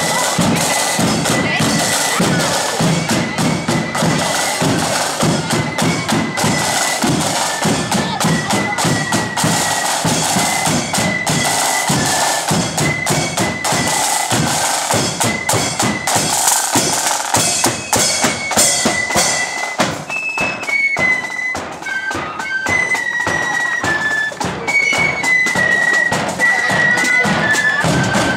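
Blood-and-thunder marching flute band playing a march: massed flutes carry a high stepping melody over rapid side-drum rolls and a bass drum beat.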